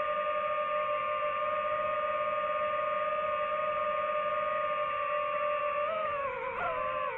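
DJI FPV drone's motors and propellers whining at a steady pitch. About six seconds in, the pitch wavers up and down as the throttle changes.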